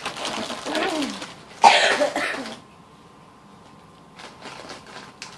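A girl coughing, loudest in one harsh burst about two seconds in, after a second or so of wordless vocal sound.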